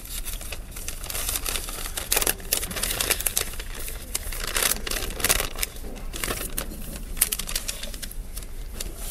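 Paper rustling and crinkling close to a lectern microphone: a run of irregular crackly clicks, over a steady low mains hum.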